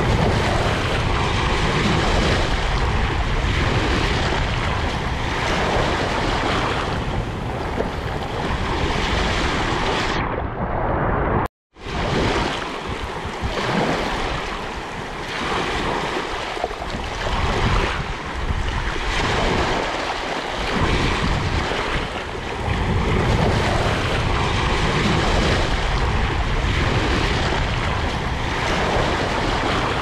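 Small waves breaking and washing up over a sandy shore, swelling and easing every few seconds, with wind rumbling on the microphone. The sound drops out completely for a moment about eleven seconds in.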